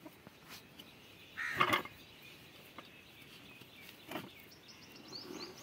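Faint handling sounds of nylon cord being pulled and tied at the foot end of a metal-framed charpai, with a short bird call about one and a half seconds in and a fainter sound near four seconds.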